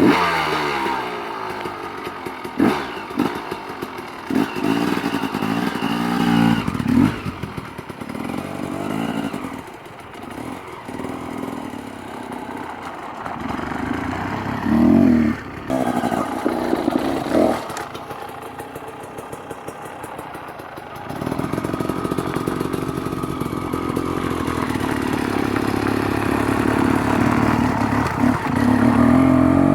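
KTM 250 XC two-stroke dirt bike engine being ridden, revving up and down with repeated blips of throttle. About two-thirds of the way through it settles into a steadier run that slowly grows louder.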